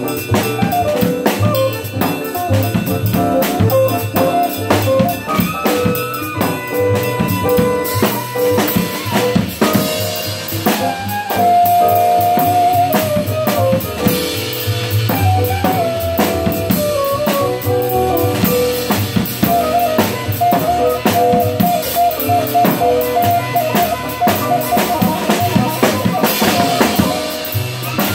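Gretsch drum kit played in a steady groove, with kick, snare and cymbal hits throughout, over recorded music that carries a melody line.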